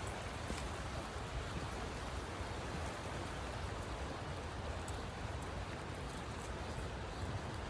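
Creek water flowing, a steady even rush with no breaks.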